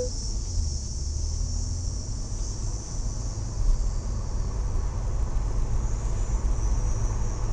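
Car pulling away and gathering speed, heard from inside the cabin: a steady low rumble of engine and tyres. Over it runs a steady high shrill of insects.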